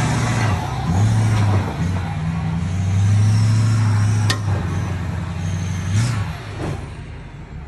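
Ford F-450's Power Stroke diesel engine pulling the lifted dually over rocks, revving up and easing off in several pushes and fading toward the end. A single sharp pop sounds about four seconds in.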